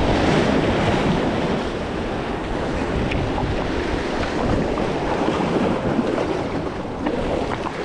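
Sea waves surging and splashing against the granite boulders of a jetty, with wind buffeting the microphone.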